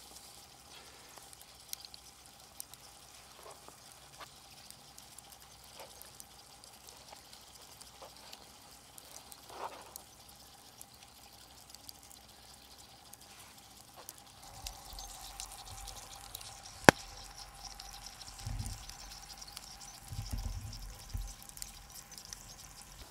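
Potatoes frying in a pan over a campfire: a faint, steady sizzle with scattered small crackles, one sharp click about two-thirds of the way through, and a few dull thuds near the end.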